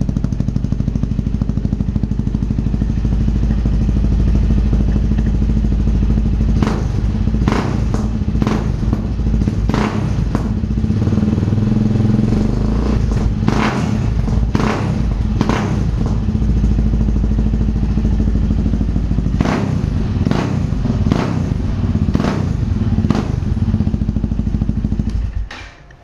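Yamaha XT 660's single-cylinder four-stroke engine running through a newly fitted TRS aftermarket exhaust: it idles, is revved in a string of short, quick throttle blips, and then stops near the end.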